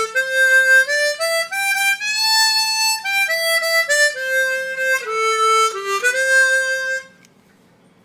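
Chromatic harmonica being played: a short melodic phrase that climbs note by note and then steps back down, stopping about seven seconds in.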